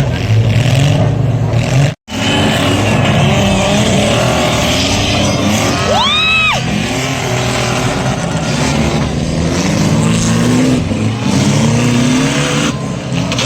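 Car engines revving, their pitch rising and falling again and again. A short, high squeal rises and falls about six seconds in. The sound cuts out for a moment about two seconds in.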